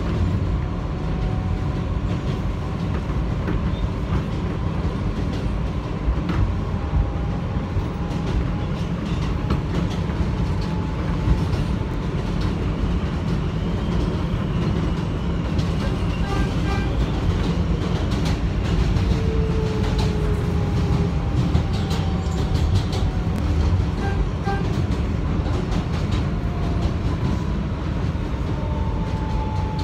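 Kawasaki R160B subway car with Siemens propulsion in motion on elevated track, heard from inside the car: a steady rumble of wheels on rail with scattered clicks over the rail joints. Faint whines that glide slowly in pitch sound now and then over the rumble.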